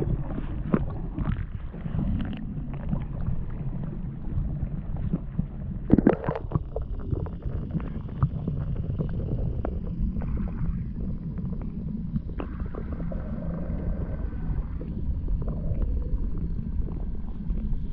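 Water noise picked up by a camera held underwater: a muffled low rumble with scattered clicks and knocks, a sharper knock about six seconds in, and faint steady tones from about ten to fifteen seconds in.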